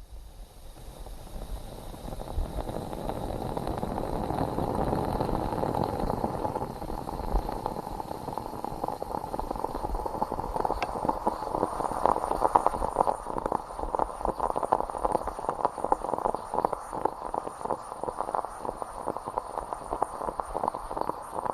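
Stovetop moka pot brewing: a hiss that builds over the first few seconds, then turns into a dense crackling gurgle as the boiling water pushes coffee up into the upper chamber.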